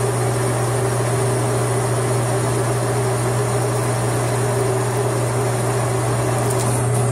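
Metal lathe running steadily under power feed while a high-speed steel tool bit takes a light, smooth turning cut on a hydraulic fitting, with a steady low hum.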